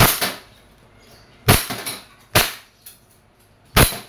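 WE Glock 35 gas blowback airsoft pistol firing semi-automatic on green gas: four sharp shots, unevenly spaced about a second apart, each with the slide cycling.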